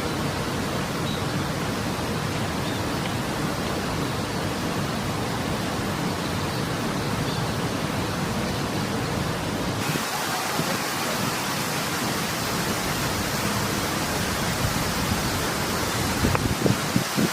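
Steady rush of water: rain falling along with the flow of an irrigation weir. The noise shifts in character about ten seconds in, and a few small knocks come near the end.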